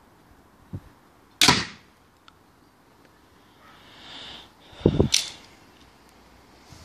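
Crossbow shot with a homemade full-size broadhead bolt: one sharp, loud crack about a second and a half in. Later, a few heavy thuds and a sharp click as the crossbow is cocked again.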